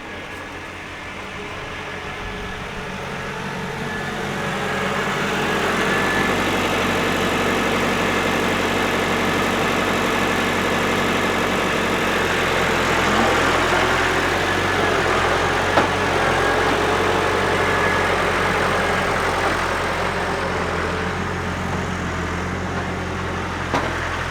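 Farm tractor engine running. It grows louder over the first few seconds, then runs steadily.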